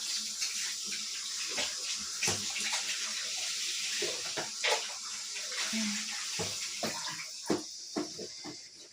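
Running water, a steady hiss with scattered knocks and clatter through it; the flow stops near the end.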